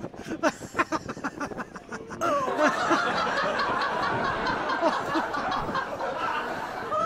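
Quick snickering laughter, then from about two seconds in a louder, dense burst of many people laughing at once that carries on.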